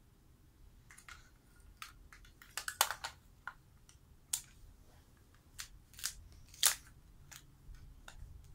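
Plastic toy food pieces and a plastic toy knife clicking and knocking together as a toddler cuts and handles a toy food set. Scattered, irregular clacks, with a quick run of louder ones about three seconds in and a sharp single knock near the end.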